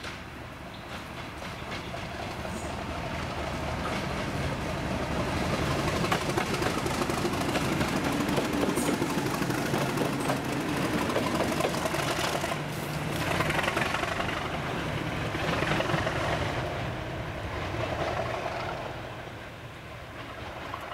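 Class 37 diesel-electric locomotive passing: its English Electric V12 diesel engine running, growing louder as it approaches. Its wheels click over the rail joints as it goes by, and the sound fades away near the end.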